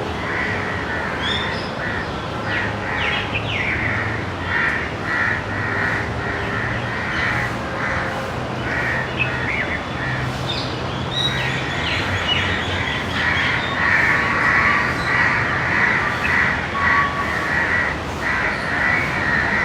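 Crows cawing loudly and over and over, many harsh calls following one another without pause, growing louder and denser in the second half.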